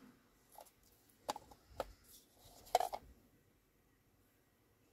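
A few light clicks and taps of washi tape rolls being picked through in a can and handled.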